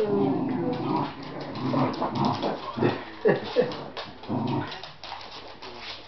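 Two dogs, a Patterdale terrier cross and a Lhasa Apso puppy, growling as they play tug-of-war over a toy. A few short, high whines or yips come around the middle. It gets quieter near the end.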